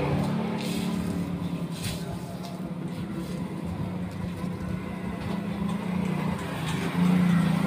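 Kawasaki Ninja 250 parallel-twin engine idling steadily, its note rising and getting louder briefly near the end.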